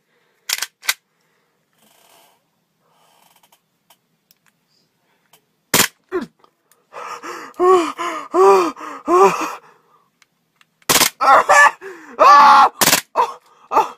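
Airsoft Glock 18 pistol firing a few sharp shots at irregular intervals, each the crack of the slide cycling with a toothbrush fixed to it and brushing inside a man's mouth. Between the shots the man lets out strained, rising-and-falling cries and gasps, several in a row, at the brush jabbing his teeth.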